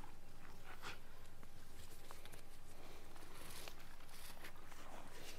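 Faint rustling and small scuffs as a horse's lead rope is untied from a post, with the mare shifting her hooves on dirt.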